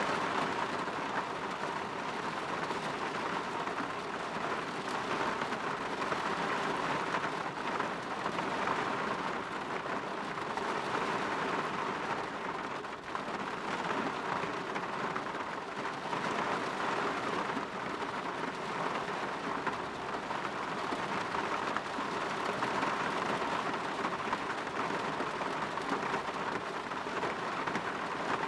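Steady rain falling on a window, an even hiss of drops that swells and eases slightly every few seconds.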